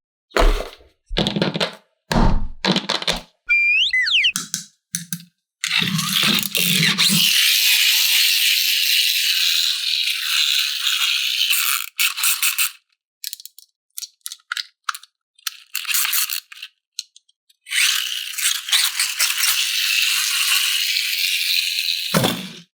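Plastic and cardboard toy packaging being handled: a few knocks and rattles of loose parts, then long stretches of crinkling and rustling. A short whistle-like sliding sound effect comes about four seconds in.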